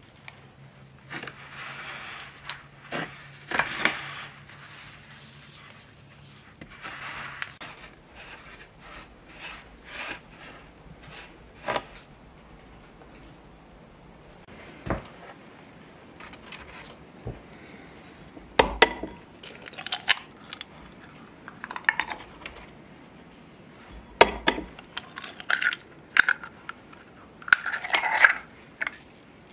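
Gritty rustling and crunching of butter being rubbed into dry cornmeal by hand in a wooden dough bowl, with scattered light clicks. In the later part, sharper taps and cracks come as eggs are broken into a stoneware bowl.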